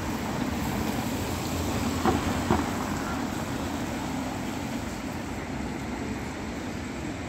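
Street traffic: cars passing close by, a steady rush of engine and tyre noise that slowly fades, with two sharp knocks about two seconds in.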